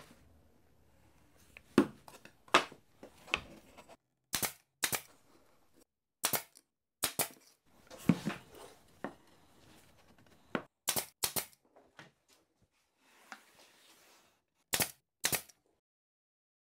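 Pneumatic brad nailer firing into glued plywood panels: a series of sharp pops, many in quick pairs, with quieter knocks of wood between.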